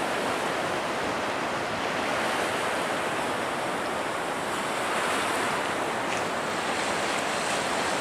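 A steady rush of strong wind on the microphone, mixed with choppy, wind-whipped estuary water washing at high tide.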